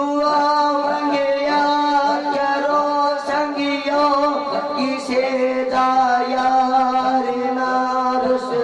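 Boys' voices singing a Punjabi Sufi devotional song through a microphone, holding one long note with wavering ornaments; the held pitch steps slightly lower about five seconds in.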